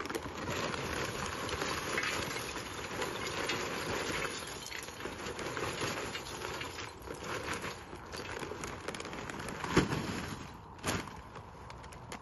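Charcoal pouring from a bag into a hanging metal fire bowl: a dense rattling clatter of lumps tumbling onto metal and each other, thinning after about seven seconds into scattered clinks as the bag is shaken out, with two sharp knocks near the end.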